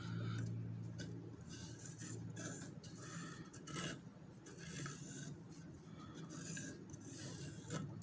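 Pencil scratching on a wooden board in short, irregular strokes as a shape is drawn freehand, with a low steady hum underneath.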